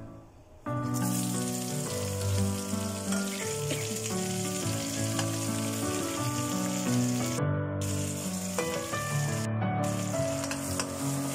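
Sliced shallots, garlic, chili and bay leaves hit hot oil in a wok about a second in and sizzle steadily while stirred with a spatula; the sizzle drops out briefly twice near the end. Background music plays underneath.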